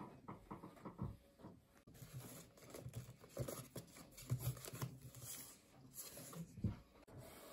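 Fingers flicking through a box of packaged greeting cards: faint, irregular papery rustling with a few sharper taps.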